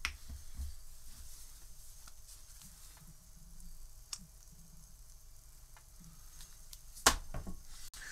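Plastic squeeze bottle of mustard being squeezed onto a burger bun: soft, faint squishing, with a few light clicks and one sharper click about seven seconds in.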